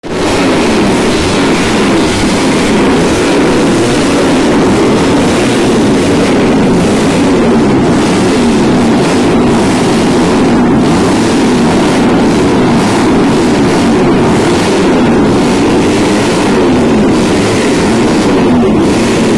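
Several racing motorcycle engines running and revving together, their overlapping notes rising and falling.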